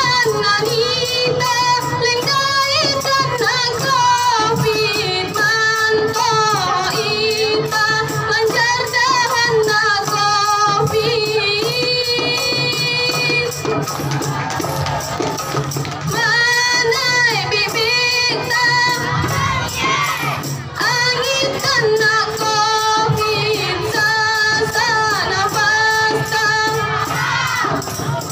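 A women's nasyid group singing a song in the Simeulue language into microphones, in unison, to a steady beat of hand-struck rebana frame drums.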